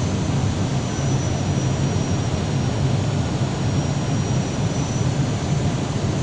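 Steady roar of an Airbus airliner's engines and rushing air heard inside the passenger cabin on approach to landing, with a faint high whine.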